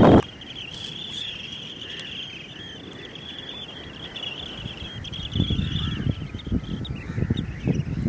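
Birds chattering in a high, continuous twitter that fades out about five seconds in. From then on, irregular low rumbles of wind buffet the microphone.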